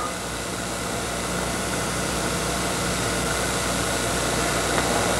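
Steady hiss with a low hum underneath, even throughout: background noise of the room and the recording, with no one speaking.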